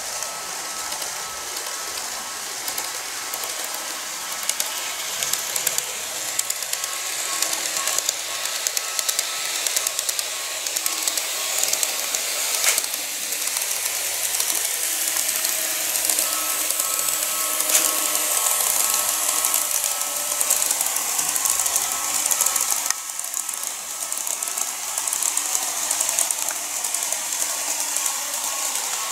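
KATO N-gauge model electric trains running along the track: a steady thin motor whine with a constant rattle of small clicks from the wheels over the rail joints. The whine drops out for a few seconds around the middle and then returns.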